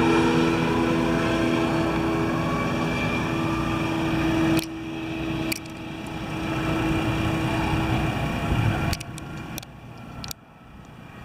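Yamaha Apex snowmobile's four-cylinder four-stroke engine running at high revs on a grass drag pass, holding a steady pitch as it pulls away and fades into the distance. The engine sound dies out about two-thirds of the way through.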